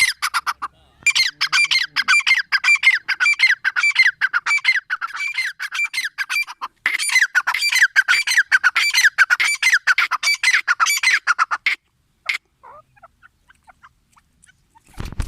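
Grey francolin calling: a long, rapid series of harsh, repeated notes in three runs, stopping about twelve seconds in after one last single note. A low thump comes at the very end.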